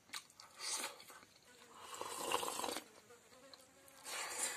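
A flying insect buzzing in several swells, the longest and loudest about two seconds in and another near the end.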